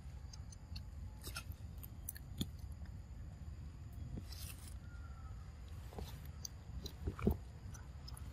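A long-tailed macaque chewing and biting food, with scattered short crunches and clicks; the loudest crunch comes about seven seconds in.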